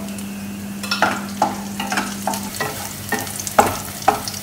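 Wooden spatula stirring dried red chillies and shallots in hot oil in a metal kadai: the oil sizzles, and from about a second in the spatula scrapes and knocks against the pan about twice a second.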